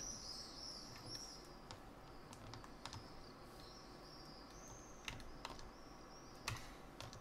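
Faint, scattered clicks of a computer mouse and keyboard; the loudest is about six and a half seconds in. Behind them, high chirps repeat in quick runs.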